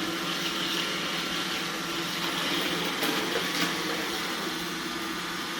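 iRobot Roomba 960 robot vacuum running, a steady hum with a hiss from its motor and brushes, with a few faint clicks about three seconds in.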